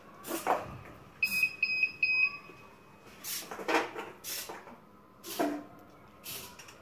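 Plastic balls clacking as an Arduino ball machine drops them one by one down its clear track into a clear jar, with a sharp knock every second or so. About a second in, the machine's buzzer gives four quick high beeps.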